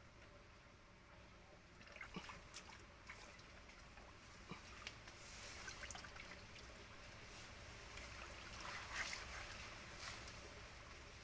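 Faint splashing and trickling of shallow muddy water as hands grope along the bottom for shrimp, with small scattered clicks and splashes from about two seconds in.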